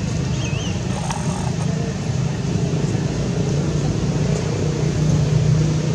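Steady low rumble of a running motor-vehicle engine, with a short high chirp about half a second in.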